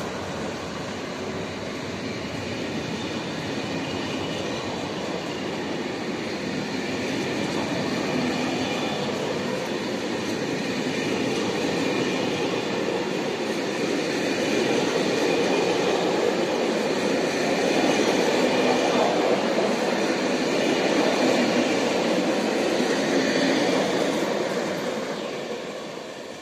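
Locomotive-hauled TER train of Corail coaches rolling past at speed: a steady rush of wheels on rail with faint high ringing tones over it. It grows louder as the last coaches and the driving trailer go by, then fades over the final seconds as the train moves away.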